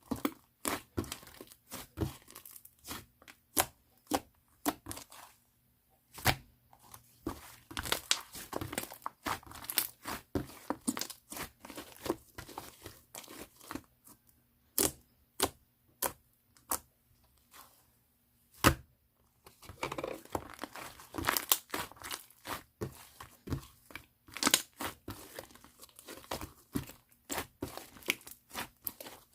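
Mixed slime being squished and stretched by hand, giving irregular sharp pops and clicks as air pockets burst, in bouts with short pauses between them.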